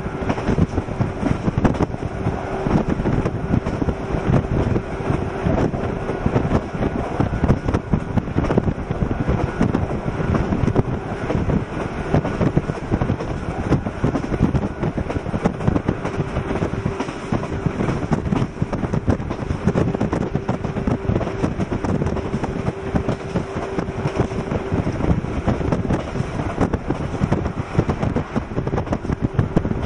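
Heavy wind buffeting on the microphone over the running noise of a 115-series electric train at speed, with a faint steady hum underneath that fades out near the end.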